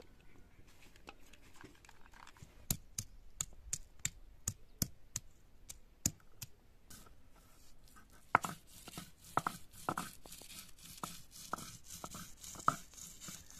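Garlic cloves being crushed with a stone roller on a flat grinding stone: a run of sharp knocks, about three a second, then from about eight seconds in a quicker run of grinding strokes over a scraping hiss as the garlic is worked into a paste.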